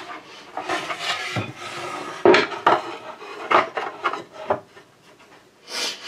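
Wooden strips and a plywood board handled on a workbench: a scraping slide of wood on wood about a second in, then several sharp wooden knocks as the pieces are set down and shifted.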